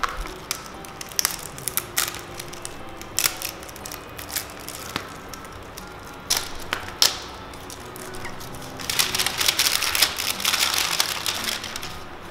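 Plastic wrapping crinkling and tearing as a Pikmi Pop toy capsule is unwrapped, with scattered clicks and taps of hard plastic and a denser spell of crinkling about nine seconds in.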